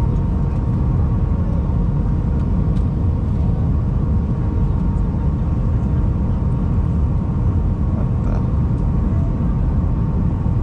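Airliner cabin noise heard from a window seat on approach: a steady, loud low rumble of engines and airflow, with a faint constant hum above it.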